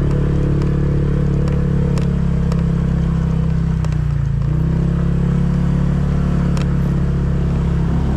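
An engine running steadily. Its pitch dips about four seconds in and then picks up again, with a few light clicks over it.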